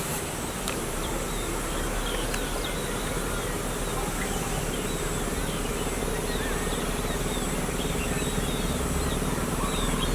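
Many birds chirping together, a dense chatter of short high calls, over a steady low hum that grows louder near the end.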